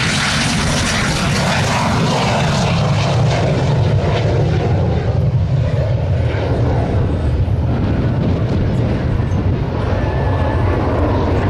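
T-33 Shooting Star's single turbojet engine running at high power in flight: a loud, steady jet rumble whose high hiss dies down after the first few seconds as the jet moves away.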